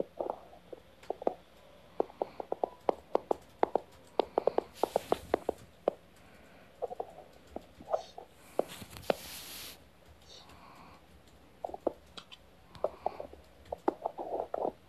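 Puppies play-wrestling: a run of quick short grunts and yips with snuffling, and two longer breathy snorts about five and nine seconds in.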